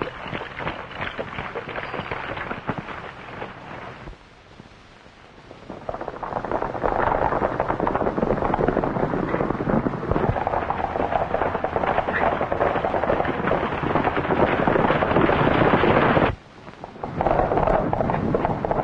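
Horses galloping: a dense, continuous clatter of hoofbeats, getting much louder about six seconds in. It drops out suddenly for about a second near the end, then comes back.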